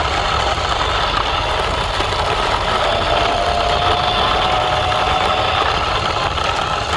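A steady mechanical running noise, like a small motor, with a faint whine rising slightly in pitch around the middle.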